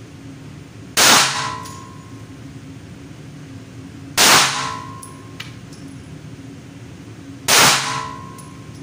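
Three single shots from a Rock Island Tactical 1911 pistol in 9mm, about three seconds apart, each with a short ring in the range booth. A faint click follows each shot.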